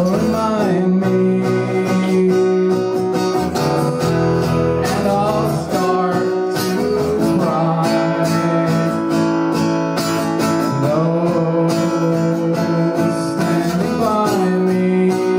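Acoustic guitar strummed in steady chords, with a voice singing a few long, wavering notes over it.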